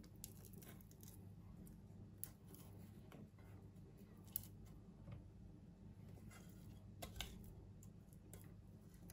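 Faint scraping of a silicone spatula in a saucepan as a thick strawberry mixture is scraped out into a bowl, with a few light clicks of the pan and spatula, the sharpest about four seconds in, over a faint low hum.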